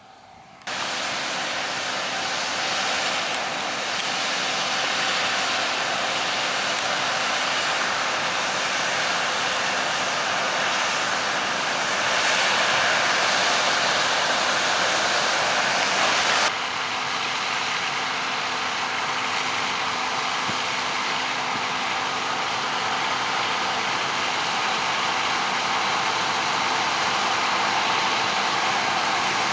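Large diesel harvest machinery running steadily: an even rushing mechanical noise with several steady hums. It starts suddenly about a second in and shifts abruptly to a slightly quieter, duller mix past the halfway point.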